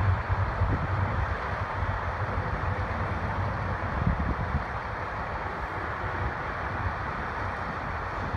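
Low rumble of a VIA Rail train moving through the station, easing off about halfway through, with wind on the microphone.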